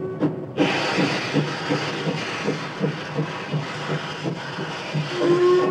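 Steam locomotive running past: a sudden rush of steam hiss about half a second in over a rhythmic beat about three times a second, then its steam whistle starts blowing a steady note near the end.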